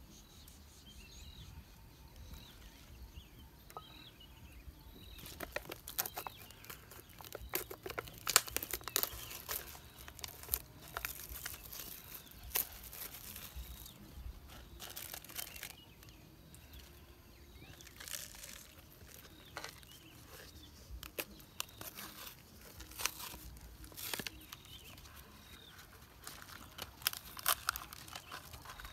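Plastic and paper packaging of an instant noodle cup crinkling and tearing as it is unwrapped and its lid peeled open, an irregular run of sharp crackles that starts about five seconds in.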